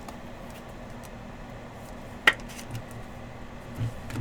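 Trading cards and packaging handled on a tabletop: one sharp click about two seconds in and a few softer taps, over a steady low hum.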